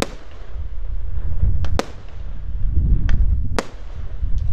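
Aerial firework shells bursting: about five sharp bangs, irregularly spaced a second or so apart, over a steady low rumble.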